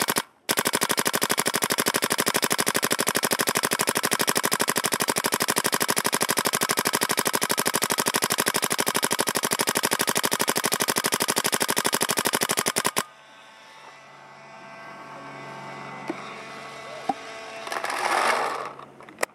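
DLX Luxe electronic paintball marker with a flat-face bolt firing a long, fast, evenly spaced string of shots, which stops abruptly about thirteen seconds in.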